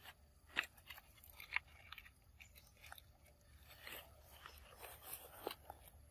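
Macaques eating: faint, irregular crunching and clicking of chewing, with the sharpest clicks in the first second and a half and a few soft rustles later.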